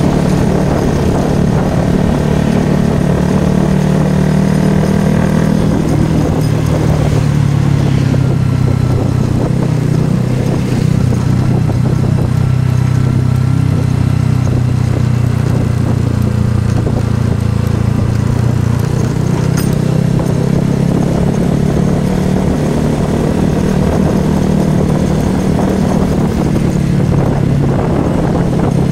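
Motorcycle engine running while riding, its note sinking slowly through the middle of the stretch and rising again toward the end as speed changes.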